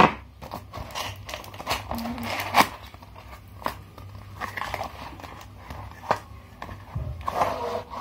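Parcel wrapping being torn open by hand: cardboard and plastic packing tape ripped, peeled and crinkled in irregular bursts, with a few sharp rips.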